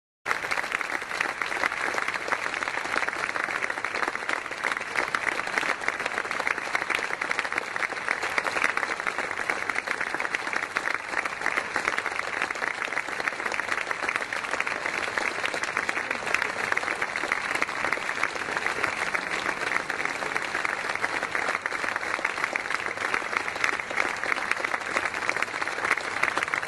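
Audience applauding: dense, steady clapping of many hands that starts abruptly and keeps up without a break.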